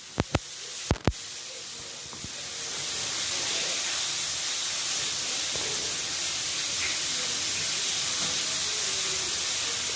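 A few sharp clicks, then a steady hiss that swells over a second or so and holds.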